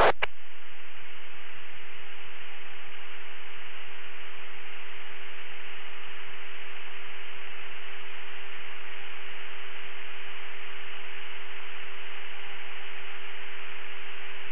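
Steady radio static hiss on an open channel between transmissions, with a constant hum tone underneath.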